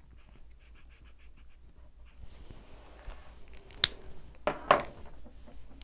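Copic marker nib scratching quickly back and forth on paper, about six strokes a second for the first two seconds, followed by a few sharp clicks and knocks.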